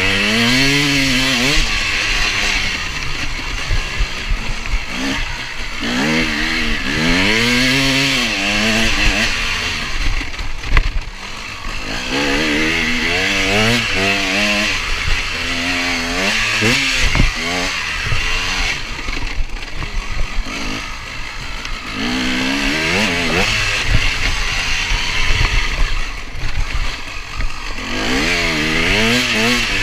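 KTM 250 EXC two-stroke dirt bike engine being ridden hard, revving up through the gears and dropping off again and again, heard from on board the bike.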